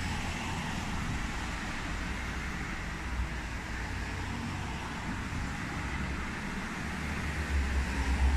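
Steady background rumble of distant road traffic, with the low rumble growing louder near the end.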